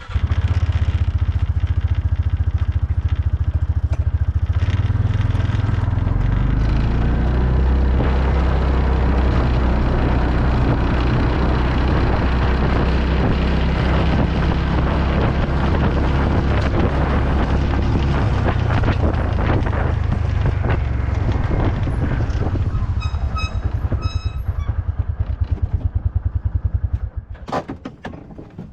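A vehicle engine running and being driven, its pitch stepping up a few seconds in, then shut off near the end. Shortly before it stops there is a short series of electronic beeps.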